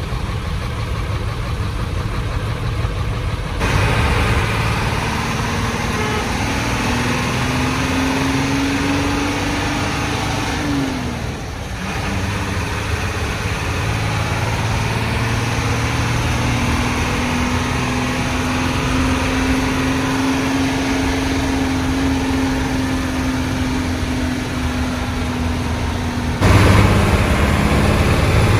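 Old Hino diesel bus engine heard from inside the non-AC cabin, with its growling ('ngorok') exhaust: it runs quieter at first, then about four seconds in it pulls away, the engine note rising until a short dip around twelve seconds in as it changes gear, then holds a steady note.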